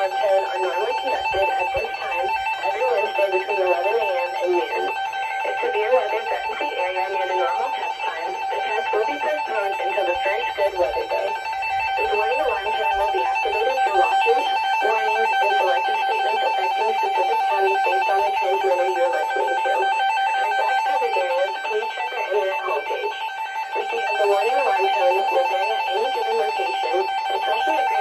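A steady two-tone electronic alert tone, like an Emergency Alert System attention signal, held without a break over plucked guitar music.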